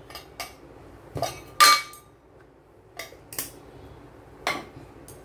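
A small stainless-steel spice container clinking and tapping: about eight short metallic knocks spread out, the loudest about a second and a half in with a brief ring.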